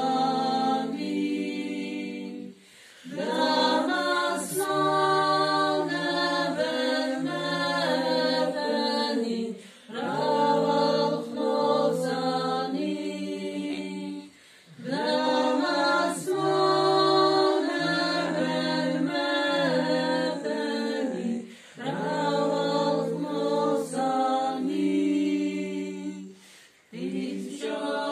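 Group of women singing an Orthodox hymn a cappella, in sung phrases of about five to seven seconds with short pauses for breath between them.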